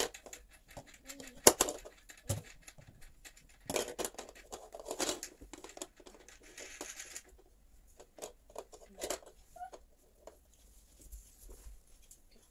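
Clicks and knocks of a folding treadmill's frame and parts being handled during assembly, the sharpest about a second and a half in. A few seconds of rustling follow in the middle, then quieter scattered ticks.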